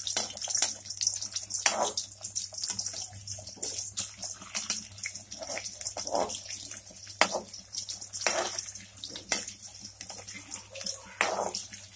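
Besan gatta pieces deep-frying in hot oil in a metal kadhai: a steady sizzling hiss with frequent sharp crackles, and the metal slotted spoon clinking and scraping against the pan as they are stirred toward golden brown.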